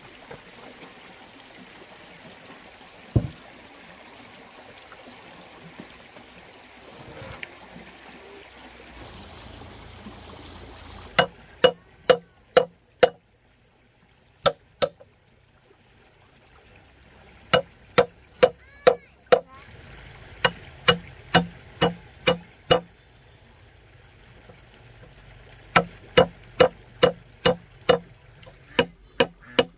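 Trickling stream water, then runs of sharp, ringing hammer blows on wood, two to eight strikes at a time at about two a second, starting about eleven seconds in.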